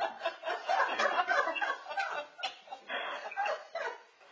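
Indistinct conversation among several people, with chuckling and light laughter.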